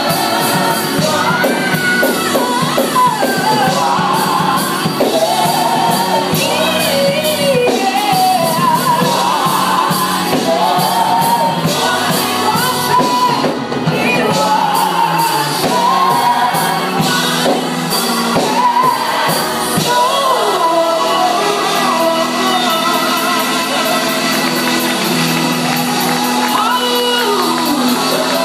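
Live gospel praise-and-worship music: a lead vocalist sings sliding, ornamented lines into a microphone over instrumental accompaniment, with shouts and whoops from the congregation, echoing in a large hall.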